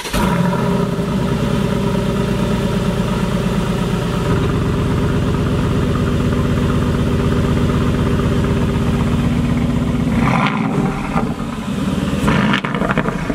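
2020 Aston Martin Vantage's twin-turbo V8 running at idle, heard from close behind its exhaust tips. The engine note shifts about four seconds in, and again near the end.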